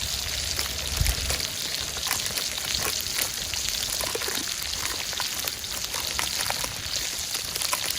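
Burger patties sizzling over a campfire, with the melting fat spitting in many small crackling pops.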